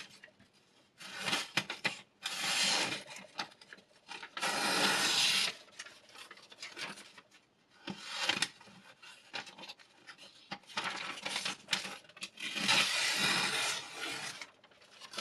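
Diamond sharpening stone drawn along a knife blade on a Ruixin Pro RX 009 guided sharpener, a rasping scrape about six times, each stroke about a second long with pauses and light clicks between.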